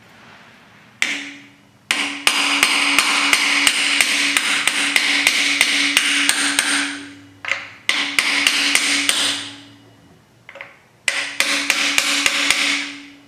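Hammer striking a socket used as a driver to seat a freeze plug into a Chrysler 440 big-block's cast-iron engine block: quick strikes at about four a second, in three runs, with the metal ringing between blows.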